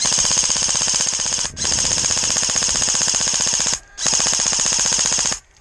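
Airsoft gun firing on full auto in three long, rapid bursts, with brief breaks about a second and a half in and near four seconds, stopping shortly before the end.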